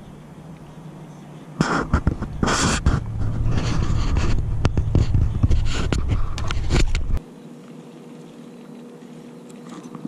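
Close rubbing, scraping and clicking right on the microphone with a deep rumble, starting about a second and a half in and cutting off abruptly about five seconds later: handling noise on the camera.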